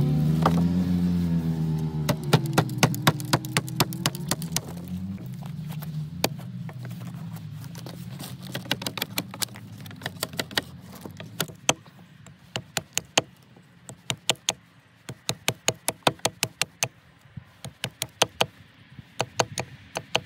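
Fiskars hatchet chopping green sapling wood against a wooden chopping block: many sharp knocks in quick runs of several strikes a second, the blows of limbing a branch and pointing a stake. A passing vehicle's engine fades away over the first few seconds.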